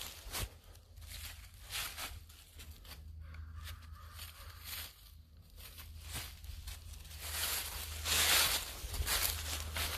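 Footsteps rustling and crunching through dry fallen leaves, a person and a dog walking over deep leaf litter in uneven steps, loudest about eight seconds in.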